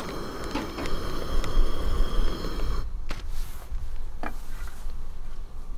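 Electric coffee grinder motor running with a steady whine that cuts off about three seconds in, over a low rumble. Then a couple of light knocks.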